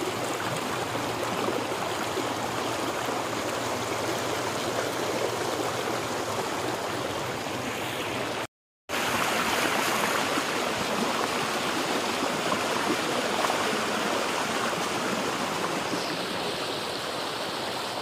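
Floodwater flowing fast across a flooded paved path and spilling through a gateway, a steady rush of water noise. It drops out to silence for a moment about halfway through, then comes back the same.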